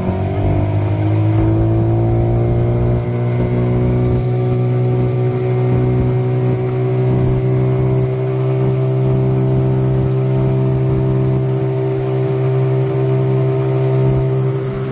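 Yamaha 20 hp outboard motor running at speed, pushing the boat along with a steady drone. Its pitch climbs slightly in the first second, then holds.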